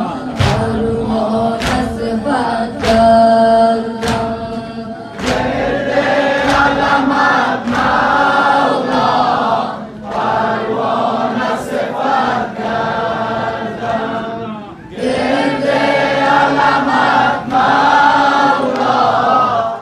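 A noha (mourning lament) chanted by a boy reciter over a microphone and a group of men's voices singing with him in unison, to regular sharp hand beats about every half second to second. The singing dips briefly about two-thirds of the way through, then resumes.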